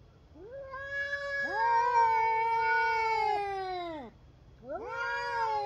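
Cat yowling (caterwauling): two long, drawn-out wails, the second starting near the end and sliding down in pitch, the threatening yowl of a cat squaring off with a rival.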